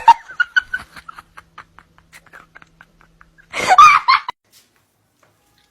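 A person laughing: a string of short laughs that fade away, then a louder outburst about three and a half seconds in.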